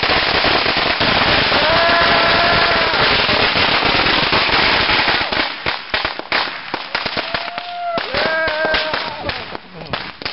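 A string of firecrackers going off in a fast, dense crackle that thins out about halfway through into scattered separate bangs. Short voices call out over it a couple of times.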